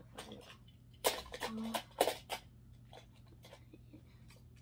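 Die-cast toy cars clicking and clattering against each other and the plastic case as a hand rummages through them, a short run of knocks and rattles about a second in.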